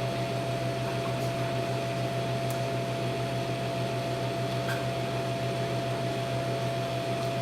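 Microwave oven running with a steady hum and a faint high tone, with a few faint ticks.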